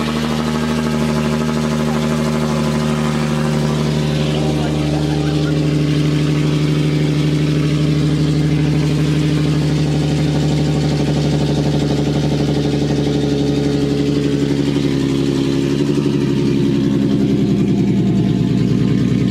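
Infiniti Q50 engine idling steadily with its axle-back exhaust removed, so it runs open and loud through the remaining pipes; it gets a little louder near the end.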